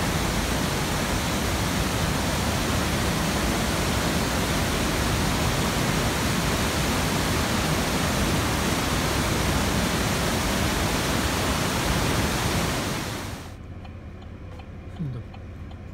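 Waterfall and rocky cascade rushing steadily. The sound fades out about 13 seconds in, leaving much quieter outdoor background.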